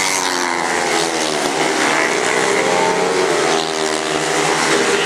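Several long track racing motorcycles running at race speed, a mix of engines whose pitch rises and falls as they sweep through the bend and along the straight.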